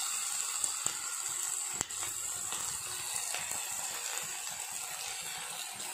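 Green chillies, ginger and garlic sizzling in hot sesame oil in a frying pan, a steady hiss with a couple of light clicks about one and two seconds in.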